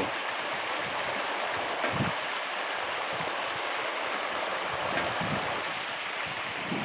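A small woodland stream running, a steady rush of water.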